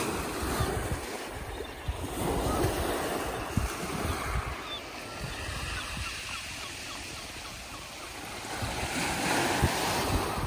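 Small waves breaking and washing up a shingle beach, swelling twice, with wind buffeting the microphone.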